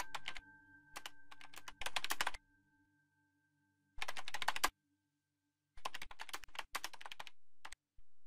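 Computer keyboard typing in short bursts of rapid keystrokes, with pauses of about a second between the bursts.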